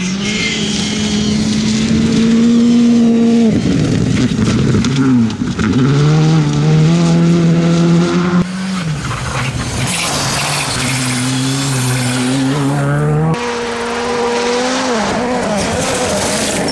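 Turbocharged four-cylinder rally cars, among them a Škoda Fabia R5 and a Ford Fiesta WRC, driving flat out on gravel stages. Engines are held at high revs, with quick lifts and shifts up through the gears. The sound changes abruptly from one car to another about eight and thirteen seconds in.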